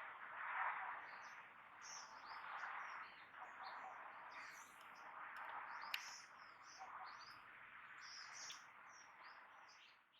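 Birds chirping: many short, high chirps over a steady background hiss that swells every couple of seconds, with one sharp click about six seconds in, fading out at the very end.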